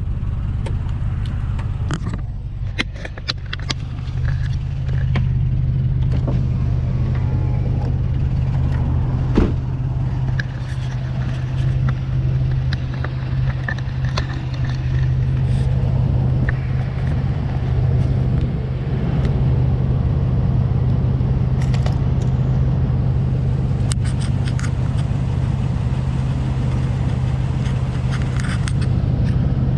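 Nissan Titan's 5.6-litre V8 running with a steady low drone, heard from inside the cab, with a few clicks and rattles in the first few seconds.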